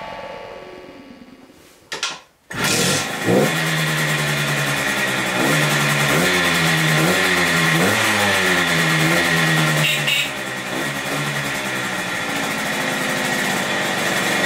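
Fantic GT Super Six moped's Minarelli P6 two-stroke single-cylinder engine starting up and catching about two seconds in, then revved up and down several times on the throttle before settling to a steady idle.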